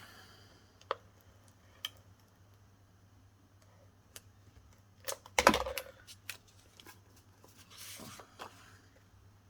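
Paper and card being handled and set down on a craft desk: scattered light taps and clicks, with a louder clatter and thud about five and a half seconds in and a short rustle near the end.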